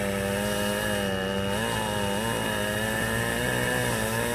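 Chainsaw running while cutting a pine trunk, its pitch sagging and recovering a few times as the chain bites into the wood.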